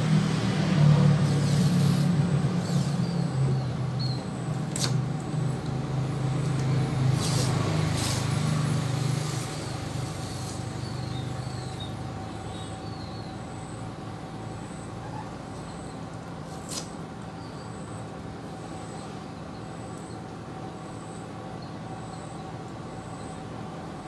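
Masking tape pulled off its roll in several short rips while it is laid on a car door panel. Under it a vehicle engine hums and fades away after about ten seconds.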